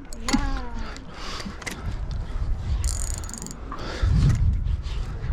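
Fishing reel drag giving a short burst of rapid high-pitched clicking about three seconds in as a hooked fish takes line, over a steady low rumble.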